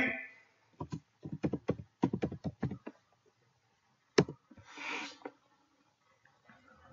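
Computer keyboard typing: a quick run of about a dozen key clicks, then one louder key press about four seconds in, followed by a brief soft rush of noise.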